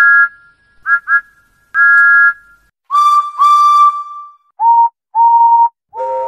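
Steam locomotive whistles tooting in turn, each at a lower pitch than the one before: a high two-note whistle gives quick toots and then a longer one, a lower whistle gives a short toot and a long one, then a still lower whistle gives a short toot and a longer one, and a deep, chord-like whistle starts near the end.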